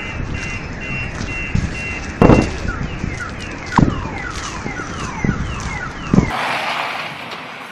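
Car alarm sounding: a steady high electronic tone, then a fast train of repeated falling whoops, broken by a few loud knocks. It is going off in the aftermath of the meteor's air-burst shock wave. Near the end it cuts to wind noise on the microphone.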